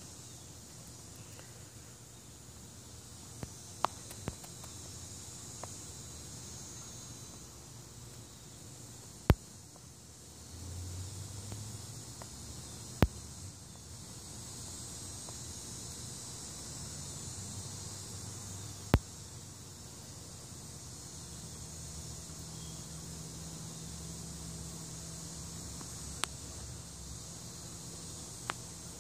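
A steady, high-pitched chorus of insects, crickets or similar, with a faint low hum beneath it. A handful of sharp clicks stand out over the chorus, three of them much louder than the rest.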